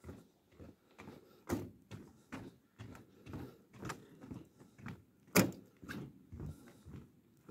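Footsteps walking along the deck of a suspension footbridge, about two steps a second, each a dull thud, with one sharper, louder knock about five seconds in.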